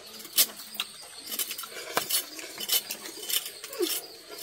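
Irregular light clicks and clinks of a meal being eaten, spoons knocking against a metal cooking pot and bowls, about a dozen in four seconds.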